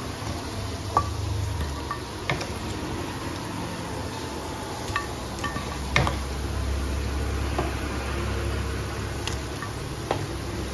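Onion pakoras deep-frying in hot oil with a steady sizzle. A wooden slotted spoon knocks against the steel kadai a few times as the fried pakoras are lifted out, the sharpest knock about six seconds in.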